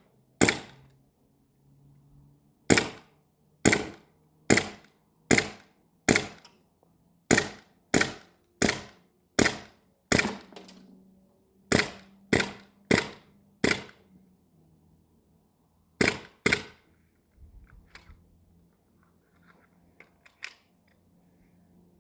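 Elite Force 1911 gas blowback airsoft pistol firing about seventeen single shots, each a sharp crack with a short tail, in uneven strings with pauses between them. The magazine is low on gas. Faint small clicks follow near the end.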